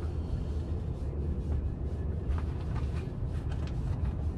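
Wind buffeting the microphone: a low, uneven rumble with no steady pitch, and a few faint clicks about halfway through.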